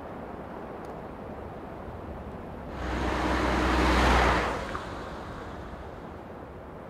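A soft whoosh of rushing noise that swells over about two seconds and fades away, over a low steady background hum; an edited transition sound effect.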